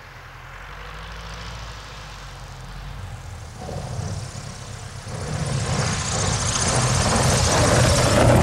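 Single-engine high-wing taildragger plane landing on a dirt strip: the engine and propeller hum at low power, growing steadily louder as the plane touches down and rolls past close by, loudest near the end.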